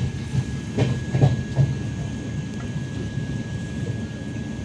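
Passenger train coach rolling on the track, heard from inside by the door: a steady low rumble of the wheels, with a few louder knocks about a second in.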